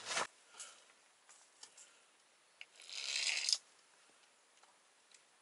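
A small ice-fishing rod and reel being handled over the hole: a few faint clicks, then a rustling burst lasting about a second, about three seconds in.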